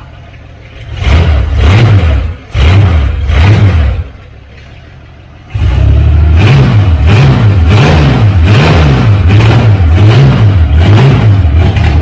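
1979 Dodge Caravan's V8 engine on its first start: it fires in two short bursts and dies, then catches about five seconds in and keeps running loud, its speed rising and falling in an even rhythm.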